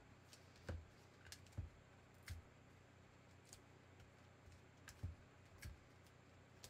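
A few short, soft taps and knocks from hands and paper being handled and pressed onto a cutting mat, spaced apart over quiet room tone.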